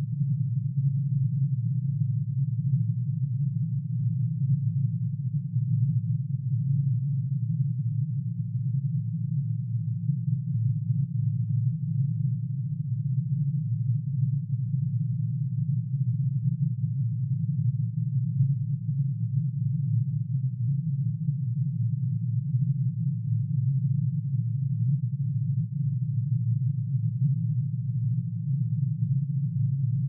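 Curium's atomic emission spectrum turned into sound: one sine tone for each spectral line, shifted down into hearing range and added together into a steady low hum with a restless, wavering texture.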